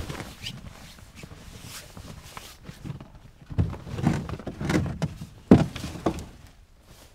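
Ice-fishing gear loaded into a black plastic sled: a run of dull thumps and knocks about halfway through, the loudest one about five and a half seconds in, with footsteps in the snow.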